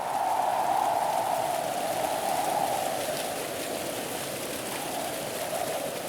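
Steady rushing, splashing water, a little louder in the first couple of seconds.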